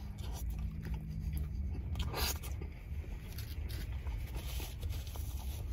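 Chewing a mouthful of double Big Mac, with soft wet mouth sounds, over a steady low rumble. A brief rustling scrape about two seconds in.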